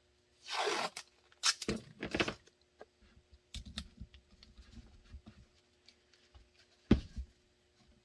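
Blue painter's tape pulled off the roll in a longer rip, then torn with two or three short, sharp rips, followed by light handling clicks. A sharp knock about seven seconds in is the loudest sound.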